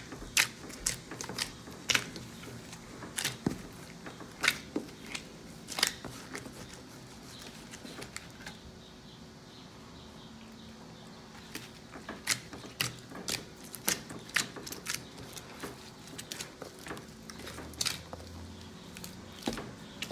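Gloved hands kneading soft paratha dough in a stainless steel bowl: irregular sharp smacks and squelching clicks, about one or two a second, with a quieter stretch in the middle.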